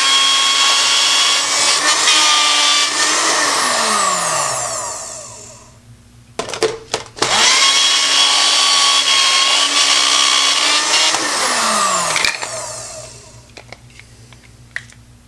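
Magic Bullet blender's motor base running with ice cubes in the cup, twice. Each run is a steady whine that drops in pitch as the motor winds down. Clicks come between the runs as the cup is pressed down and released. The blade fails to crush the ice.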